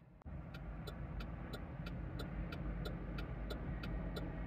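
Steady clicking from a pickup truck, about three clicks a second, while the engine is not running. A low steady hum comes on a moment in. The owner calls it never a good sound.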